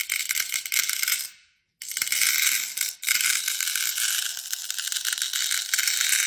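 Busy rattling and clicking of many small hard pieces being handled or shaken, in two stretches split by a brief silence about one and a half seconds in.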